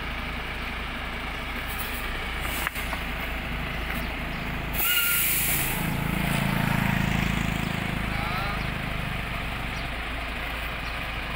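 Diesel engine of a HOWO cement bulk tanker truck running on a muddy road, with a short burst of hiss about five seconds in. The engine then works harder for a couple of seconds as the heavy tanker tilts toward the ditch.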